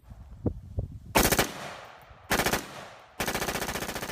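M4-style automatic rifle gunfire, as a sound effect for a toy M4 gun: three rapid bursts, a short one just after a second in, another past two seconds, and a longer one near the end, after a couple of light clicks.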